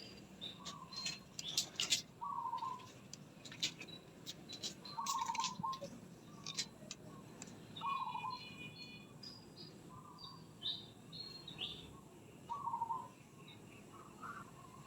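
Birds calling: one bird repeats a short note every second or two, while other birds give quick, high chirps between its calls.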